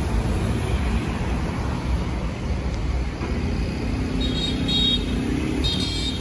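Steady low rumble of road traffic, with a vehicle's engine tone rising above it in the second half. Two short high-pitched sounds come near the end.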